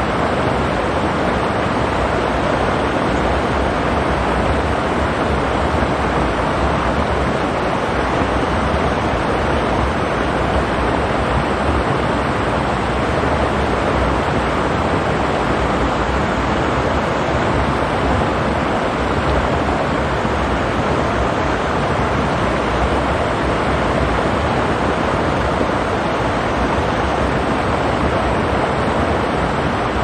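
Mountain stream water rushing over rocks: a steady, even rush with no changes.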